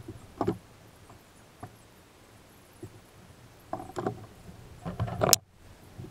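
Irregular hollow knocks and handling clatter of gear against the plastic hull of a Feelfree Lure 10 fishing kayak: a few scattered knocks, a cluster about four seconds in, and the sharpest, loudest knock just after five seconds, after which the sound briefly cuts out.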